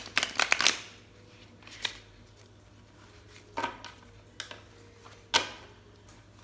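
A deck of tarot cards being shuffled by hand, the cards slapping together: a quick run of flicks at the start, then three single snaps spread a second or two apart.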